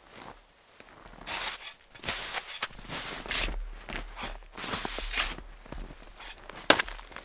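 Snowshoe footsteps crunching through deep snow in an uneven series of steps, starting about a second in. A sharp snap near the end is the loudest sound.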